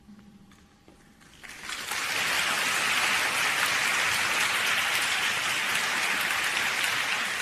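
Audience applause that breaks out about a second and a half in, after a short quiet stretch, and then goes on steadily.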